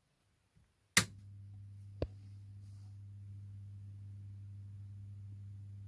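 A sharp click about a second in, then a steady low hum from the newly belted Philips VG-8235 floppy drive, connected and powered up, with one more short click a second later.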